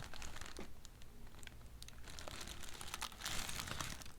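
Hands handling a lace wig: soft rustling of hair and lace with scattered small clicks, swelling into a brief louder rustle near the end.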